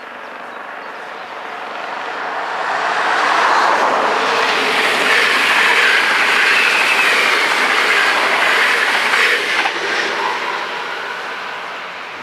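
NS VIRM double-deck electric train passing over a level crossing, its wheels running on the rails. The noise swells over the first few seconds, holds loud for about six seconds, and fades near the end as the train moves away.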